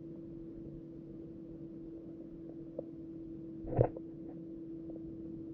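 Muffled underwater ambience: a steady low hum, with a faint tick and then one sharp knock a little before four seconds in.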